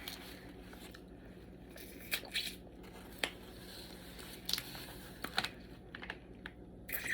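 Cooked blue crab being cracked and picked apart by hand, with eating: irregular sharp cracks and crunches, about one every second or so.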